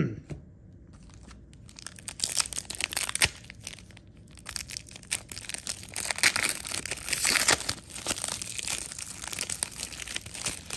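Shiny foil baseball card pack wrapper being torn open and crinkled by hand, with a burst of crackling about two seconds in and a longer stretch from about five seconds on.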